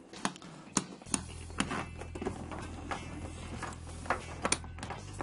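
Hands handling a leather bag: scattered small clicks and taps of the brass buckles and stiff leather straps, with a steady low hum coming in about a second in.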